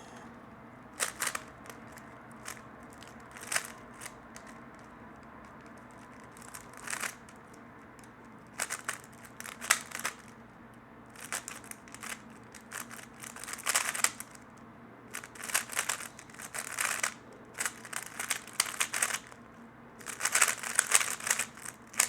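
3x3 Rubik's cube being turned rapidly by hand, its layers clicking and clattering in quick bursts. A few separate turns at first, then denser runs of turning from about eight seconds in, busiest near the end.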